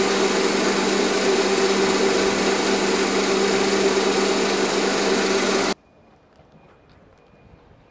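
Koei Sangyo 1000-type circular vibrating sieve running under test: a loud, steady buzzing hum with a metallic rattle. It cuts off suddenly about six seconds in, leaving only faint background.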